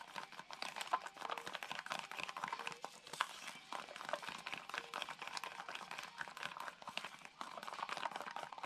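Wooden craft stick stirring thick paint-pouring medium in a clear plastic cup: a rapid, irregular run of clicks and scrapes as the stick knocks and drags against the cup's wall.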